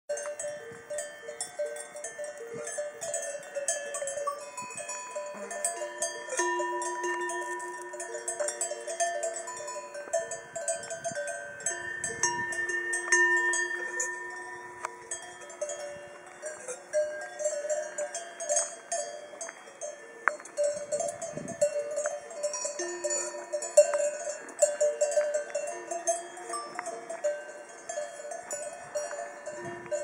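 Several cowbells on grazing cows clanking irregularly as the animals move. Bells of different pitches ring on and overlap.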